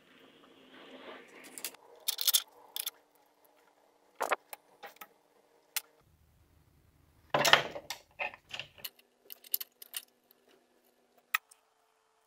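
Small hard objects being handled: scattered sharp clicks, taps and short metallic rattles, with the loudest clatter about seven and a half seconds in.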